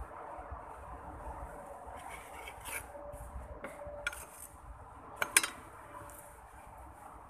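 Handling sounds at a table: a few light clicks of small hard objects knocking together, the loudest a quick pair of clicks about five seconds in.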